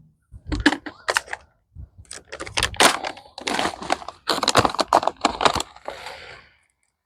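Bursts of rapid, dense clicking and rattling as granular fertiliser is handled and spread over the lawn. The clicking stops about six and a half seconds in.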